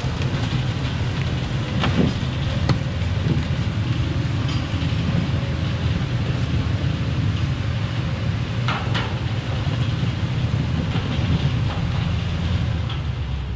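Thaco Forland FC950 4WD truck's diesel engine labouring under load as it crawls up a steep clay slope, a steady low drone. A few sharp knocks come about two seconds in, and a short clank near nine seconds.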